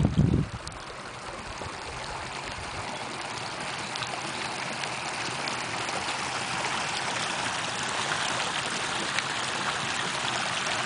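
Shallow creek water running over rocks and gravel, a steady rushing that grows slightly louder toward the end. A few low bumps on the microphone in the first half-second.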